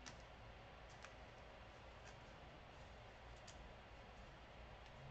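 Near silence: room tone with a handful of faint, sharp clicks spaced about a second apart.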